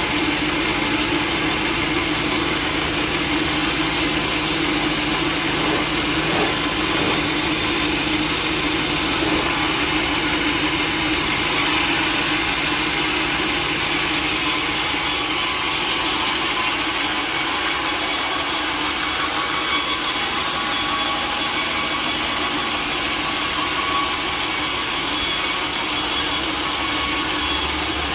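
Sawmill blade cutting steadily through a log, a loud continuous rasping noise over the steady hum of the mill's motor.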